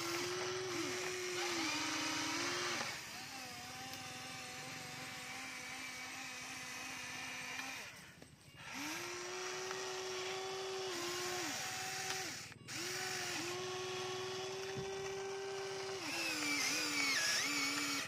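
Electric motors of a Huina radio-controlled model excavator whining as the boom, arm and bucket move. The whine swoops up at each start and down at each stop and shifts between two pitches. It cuts out briefly twice, and near the end it turns higher and more varied.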